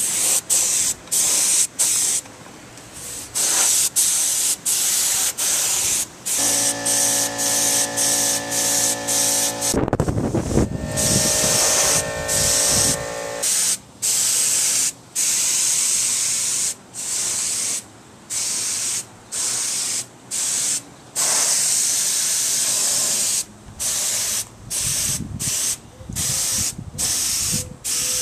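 Gravity-feed air spray gun hissing in many short bursts, a second or so each, as the trigger is pulled and released while spraying paint. A steady hum joins in from about six to thirteen seconds in.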